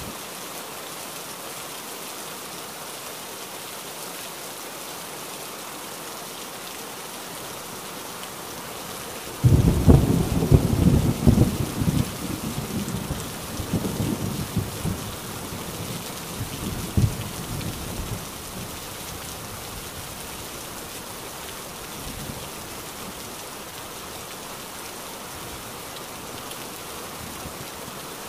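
Heavy rain falling steadily. About a third of the way in, a thunderclap breaks suddenly and rumbles for several seconds, with one last crack before it dies away into the rain.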